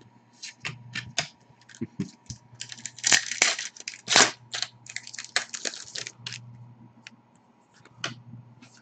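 Hockey trading cards being flipped and shuffled through by hand: a run of quick papery flicks and snaps, busiest in the middle, over a faint steady hum.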